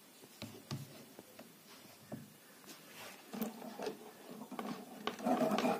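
Faint scattered clicks and taps from a 3.5 mm earphone plug and its thin wires being handled against pliers on a workbench, with a soft rustle in the second half.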